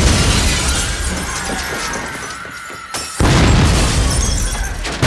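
Film sound of a bomb blast inside a store: a loud rumble with shattering glass and falling debris that slowly fades, under a faint high ringing tone. Another loud boom hits about three seconds in.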